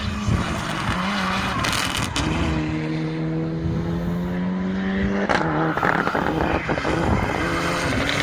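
Rallycross car engine running hard on the track. Its note holds steady, breaks off about five seconds in, then carries on higher, with tyre and surface noise underneath.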